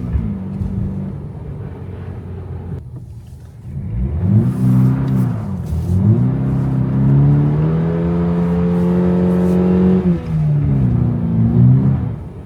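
Toyota GR86's 2.4-litre flat-four engine revving in bursts while driving in snow: the revs fall away at the start, then climb and drop about four seconds in, climb again and hold for about two seconds, and rise and fall once more near the end.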